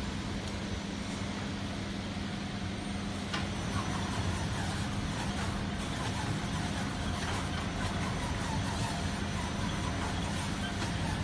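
Turntable pallet stretch wrapper running: a steady motor hum as the turntable turns the load and the stretch film is drawn off the film carriage. A sharp click comes about three and a half seconds in, after which it runs slightly louder with faint intermittent squeaks.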